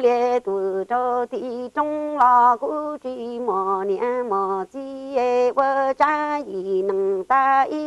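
A Hmong woman singing unaccompanied in a chanting style: short phrases of held, steady notes that step between a few pitches, with brief breaks between phrases.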